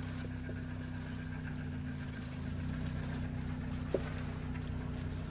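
An engine running steadily at an even speed, with a single light click about four seconds in.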